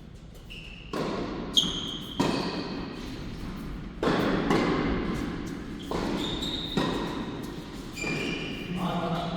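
Tennis rally on an indoor court: a string of sharp racket strikes and ball bounces every second or two, each echoing around the hall, with short high squeaks from players' shoes on the court surface.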